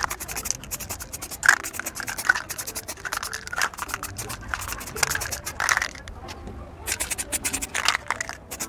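Aerosol can of grey primer spray paint being sprayed onto plastic panels in many short hissing bursts, with a brief break about six seconds in.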